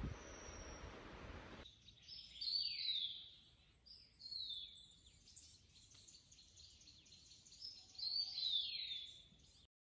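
A songbird in forest singing repeated whistled phrases that slide downward in pitch, three louder phrases spaced a few seconds apart. It starts after a rough hiss cuts off about a second and a half in, and the sound stops abruptly just before the end.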